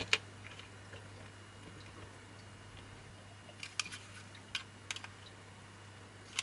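Scattered sharp clicks and taps of small screws and the clear acrylic panels of a kit enclosure being handled, with a small screwdriver set to a screw. One click comes just after the start and a cluster about three and a half to five seconds in, over a faint steady low hum.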